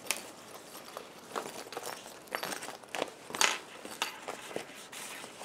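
Clear plastic window panels and fabric of a zippered pouch crinkling and rustling as it is worked right side out by hand, in irregular crackles, the loudest about three and a half seconds in.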